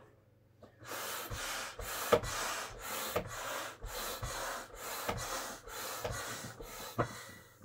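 Hand air pump worked in quick back-and-forth strokes, a rush of air about twice a second, starting about a second in, inflating a vinyl inflatable pony; a couple of sharper knocks among the strokes.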